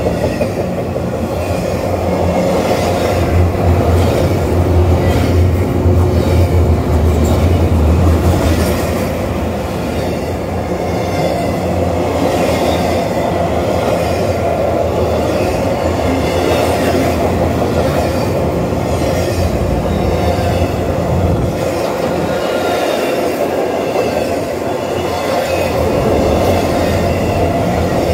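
Double-stack intermodal freight cars rolling past: a steady rumble of steel wheels on the rails, with a faint high squeal from the wheels wavering above it. The low rumble is heaviest over the first third.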